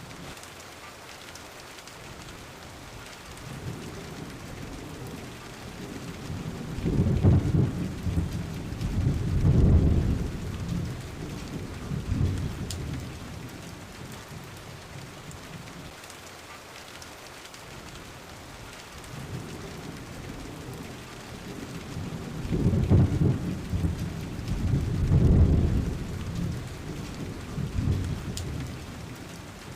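Steady rain with two long rolls of thunder: the first builds a few seconds in, swells twice and dies away near the middle; the second builds about two-thirds through, swells twice and fades near the end.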